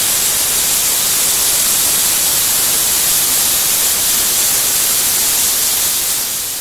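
Prestige pressure cooker letting off steam through its weight valve in a loud, steady hiss that fades a little near the end: the cooker's steam release, the sign that full pressure has been reached and the rice is cooking.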